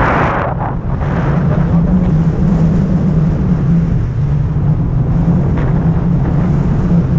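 Wind from a paraglider's flight buffeting the microphone of a camera held out on a selfie stick: a loud, steady low rumble.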